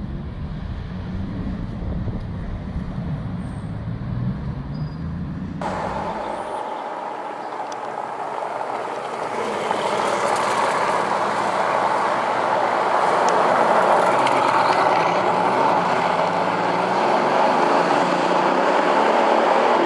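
Bugatti Veyron's quad-turbo W16 engine and exhaust as the car drives off, getting louder about halfway through. For the first few seconds wind buffets the microphone, until the sound cuts off abruptly.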